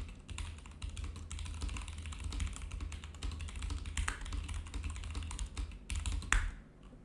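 Typing on a computer keyboard: a quick, irregular run of key clicks over a low hum, stopping shortly before the end.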